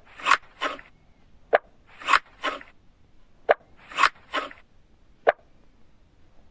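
Cartoon game sound effect repeating about every two seconds: a sharp click followed by two short swishing sounds. The cycle runs three times, then ends on a single click near the end.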